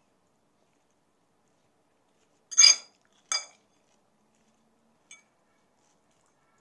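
Metal fork clinking against a salad plate: two sharp, ringing clinks about two and a half and three and a half seconds in, then a faint one near the end.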